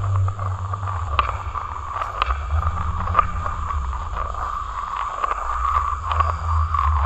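Taonga pūoro (traditional Māori instrument) music: a held, slightly wavering high tone over a steady low drone, with a few light clicks.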